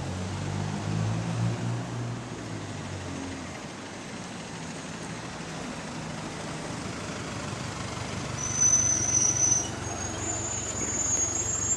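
GAL SE152 bus engine running, its exhaust leak blowing. The engine note is strongest for the first three seconds or so, then fades into steady road noise, and a high thin squeal comes in near the end.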